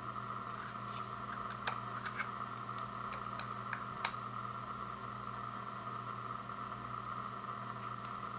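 Light plastic clicks and taps from a wireless optical mouse's shell being handled, about four in the first half, over a steady background hiss.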